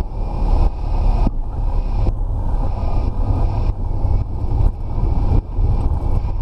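Piston engine and propeller of a single-engine light aircraft running while it taxis, heard from inside the cockpit as a loud, low, uneven rumble.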